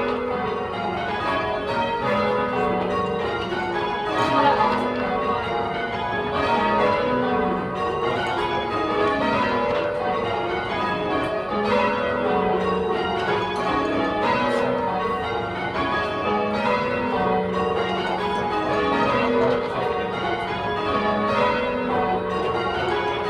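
A ring of ten John Taylor church bells rung full-circle in steady change ringing, each bell striking in turn in an unbroken rhythm. It is heard from the ringing chamber, where the bells sound bland and clinical.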